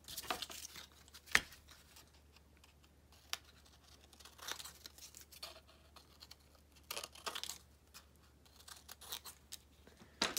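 Craft cardstock being handled: paper rustling and sliding on the tabletop, and scissors cutting through the cardstock, with a sharp click about a second and a half in.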